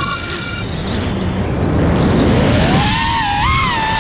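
Brushless motors of a 6S FPV freestyle quadcopter whining with the throttle. The pitch drops sharply at the start as the throttle is cut, stays low for about two seconds, then climbs back and wavers as throttle returns. Heavy wind and prop-wash rush on the onboard GoPro microphone.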